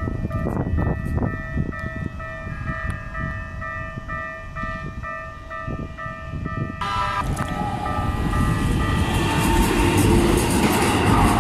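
Japanese level crossing warning bell ringing in a steady repeating pattern, about two strikes a second, over wind noise on the microphone. About seven seconds in, a Keikyu electric train arrives at the crossing and its running noise grows louder to the end, drowning out the bell.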